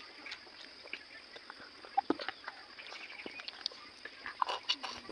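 Close-up eating sounds of a person chewing food, with irregular short clicks, smacks and crunches.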